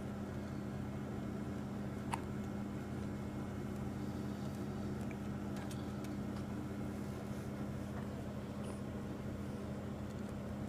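A steady low mechanical hum, with one brief sharp sound about two seconds in.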